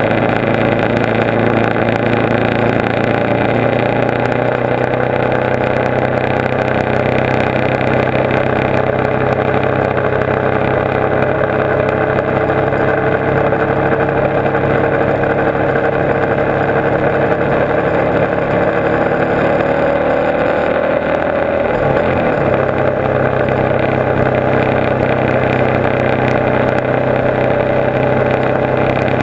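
Motorcycle engine running at road speed, heard from on the bike with a steady rush of wind noise. Its note sinks slowly over several seconds, then changes abruptly about two-thirds of the way through.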